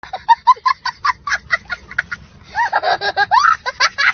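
A young boy laughing hard: a quick run of short, breathy bursts, then louder, high, wavering laughs in the last second and a half.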